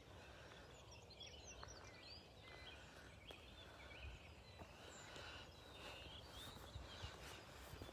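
Faint outdoor ambience: distant songbirds chirping in short scattered calls over a low, steady rumble.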